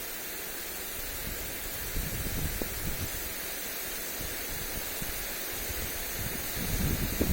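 Lawn sprinkler spraying water onto grass: a steady hiss of spray. Gusts of wind rumble on the microphone about two to three seconds in and again near the end.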